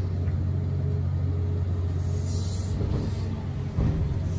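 Steady low drone of a Komatsu PC3000 mining excavator heard from inside its cab while it digs. There is a brief hiss about two and a half seconds in and a thump near the end.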